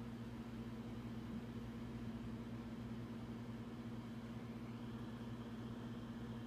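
Faint steady low hum with no other events.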